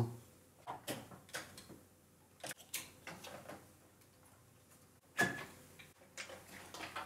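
Irregular light clicks and knocks of a circuit board and plastic parts being handled as a Power Macintosh logic board is fitted back into its plastic chassis, with a sharper knock about five seconds in.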